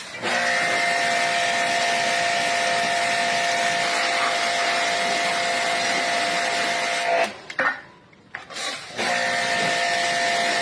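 A pressurized spray gun hissing with a steady whistle, in two long bursts, as a circuit board is cleaned. It cuts off about seven seconds in and starts again about two seconds later.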